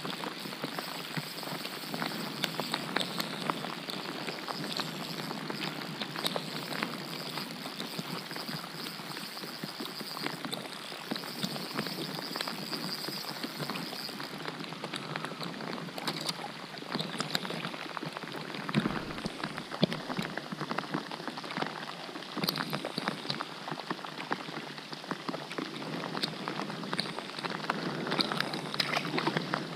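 Steady rain falling on open lake water: a dense, even patter of drops. A few louder knocks stand out, the strongest about two-thirds of the way in.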